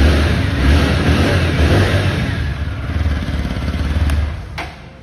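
A TVS Apache RTR 160 4V special edition's single-cylinder engine runs loudly through its stock exhaust, then dies away about four seconds in as it is switched off, followed by a sharp click.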